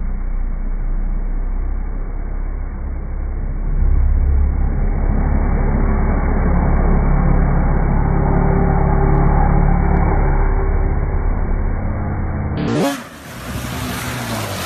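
Snowmobile engine running hard and steady as the sled ploughs through water and slush. About two seconds before the end the sound cuts abruptly to quieter splashing water.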